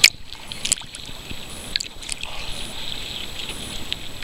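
Small sea waves lapping and splashing against a camera held at the water's surface: a steady fizzing hiss of water, with sharp splashes, the loudest right at the start and smaller ones about a second and two seconds in.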